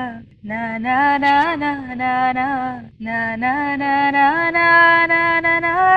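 A young woman singing solo, unaccompanied, in slow phrases of long held notes. A short break comes about three seconds in, and the second phrase steps up in pitch and holds higher.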